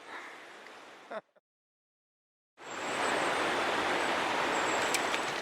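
Steady rush of a shallow trout-stream riffle. It starts abruptly after a second or so of dead silence, following a faint hiss at the start.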